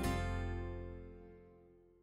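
Background music ending: a last chord is struck and rings on, fading away steadily.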